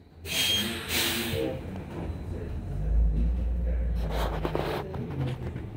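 Interior sound of a New Flyer Xcelsior XE40 battery-electric bus. A sharp hiss of air comes about half a second in, then a low rumble with a steady hum from the electric drive, and another short hiss about four seconds in.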